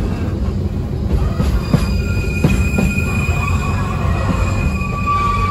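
Narrow-gauge Ikawa Line train heard from on board as it runs down the Abt rack section: a steady low rumble of wheels on rail with a few knocks, and a high wheel squeal that sets in about two seconds in and drops to a lower squeal near the end.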